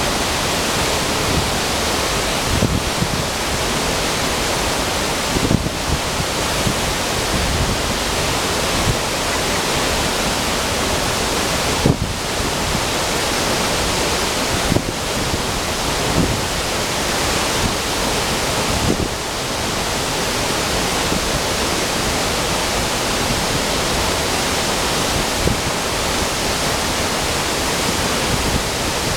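Steady, loud rush of white water cascading over the boulders of a rocky river below a waterfall, with a few brief bumps.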